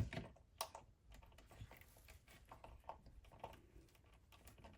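Faint, irregular small clicks and taps of plastic radio parts being handled and fitted into place, a little louder near the start.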